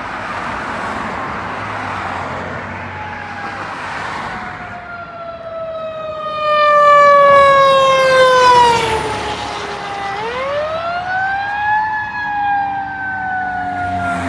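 Fire engine passing with its siren wailing. The tone falls slowly, dips low about ten seconds in, then winds back up and falls again, and it is loudest as the truck goes by. Passing car traffic is heard before the siren comes in.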